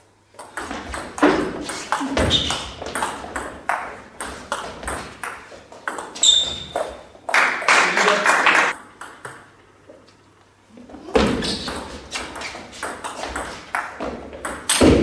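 Table tennis rallies: the ball clicking quickly back and forth off the bats and the table, in two spells with a pause of about two seconds in between. A voice is heard briefly near the end of the first spell.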